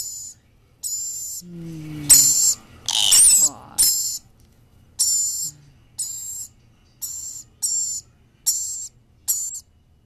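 Pet lory parrots giving short, high-pitched hissing squeaks over and over, about one a second, while playing, with a louder, busier patch of sound about two to four seconds in.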